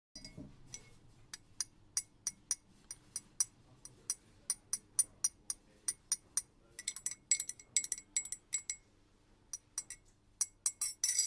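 Dolce Gusto capsule coffee machine giving a run of sharp clicking ticks, about three a second, with quicker clusters two-thirds of the way through and again near the end, over a faint steady hum.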